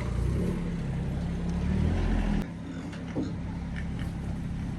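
Motor vehicle engine running with a steady low rumble that drops off sharply about halfway through.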